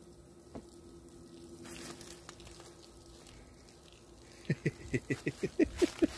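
Liquid starting to siphon out through a thin hose, gurgling in quick, short pulses of about seven a second as air and fluid come through together. The gurgling begins about four and a half seconds in; before that there is only a faint steady hum.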